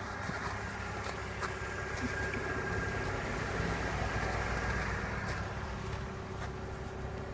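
Car engine idling steadily, heard from inside the cabin, with a constant hum.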